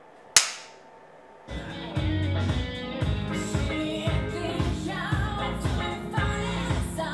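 A film clapperboard snaps shut once, sharply, with a short ring-off. About a second later a pop-rock song with singing over a steady beat starts.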